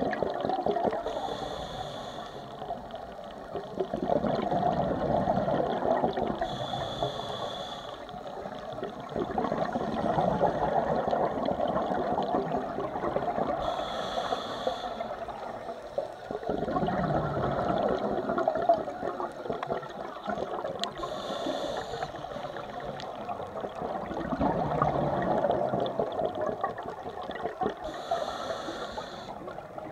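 Scuba diver's breathing through a regulator underwater: a short hissing inhale about every seven seconds, five in all, each followed by a few seconds of gurgling exhaled bubbles.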